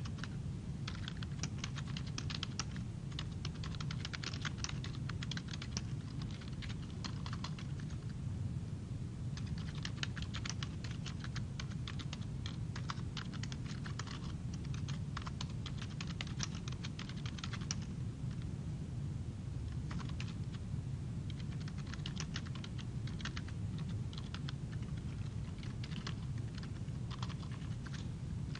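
Computer keyboard typing in bursts of rapid key clicks, broken by short pauses, over a steady low hum.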